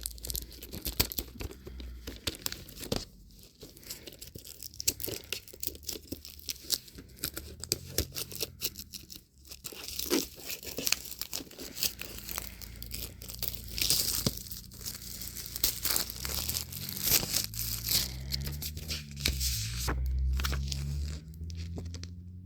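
Plastic shrink-wrap being torn and crinkled by hand as a Blu-ray steelbook is unwrapped, a steady run of irregular crackles and rustles.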